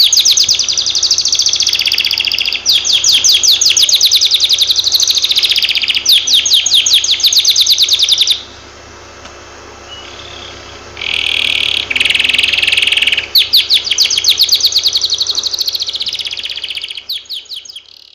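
Canary singing: long, fast trills of rapidly repeated notes, a pause of a couple of seconds in the middle, then a harsher buzzy phrase and more trilling that fades out near the end.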